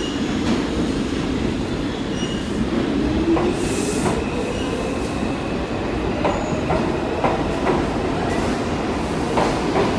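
New York City Subway train pulling out of the station: a steady rumble with a motor whine that rises in pitch as the train picks up speed. From about six seconds in, the wheels click over rail joints in a quickening run of clacks.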